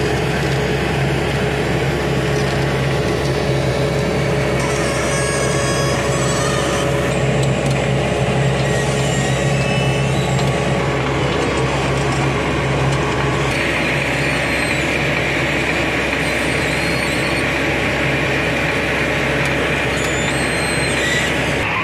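Heavy diesel machinery running steadily with a constant low engine hum; about halfway through a steady hiss joins it.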